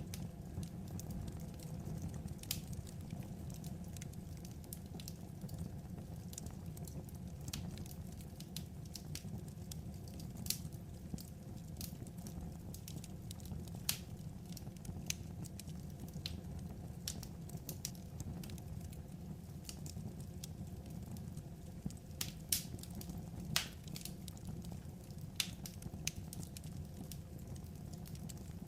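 Wood fire crackling: irregular sharp pops and snaps, a few louder ones, over a steady low rumble of burning.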